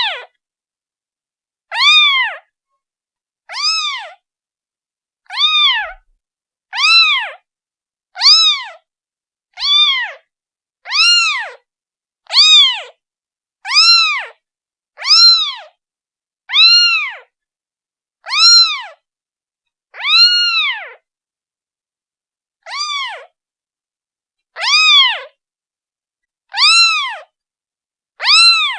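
A day-old kitten meowing over and over to call its mother: short, high calls that rise and fall in pitch, about one every second and a half, with silence between them.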